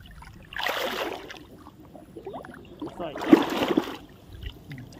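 Shallow, muddy water splashing in two short bursts, about two and a half seconds apart, as a person wades and handles a cast net.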